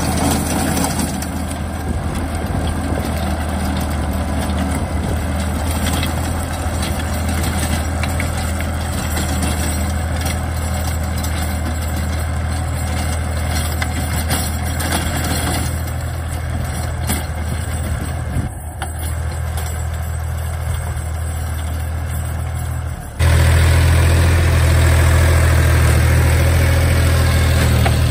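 DongFeng 244 mini tractor's diesel engine running steadily with a deep, even hum. About two-thirds of the way through, the sound jumps abruptly to a louder, closer take of the same engine.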